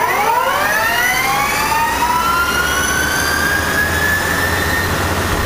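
Headstock spindle of a Dainichi MG75 CNC lathe accelerating to 1800 RPM in the high gear range: a whine of several tones rises quickly, then more slowly, and levels off near the end, over a steady low hum.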